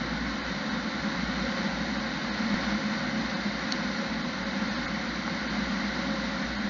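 Steady engine and road noise of a fire engine on the move, heard from inside its cab, with a low rumble and no change in pace.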